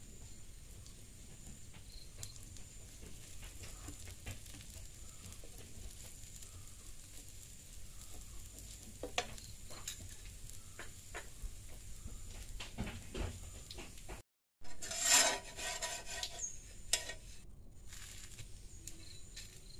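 Dosa sizzling on a hot cast-iron tawa, with small clicks and scrapes of a spoon spreading ghee. After a brief cut, louder scraping as a spatula is worked under the crisp dosa to lift it from the pan.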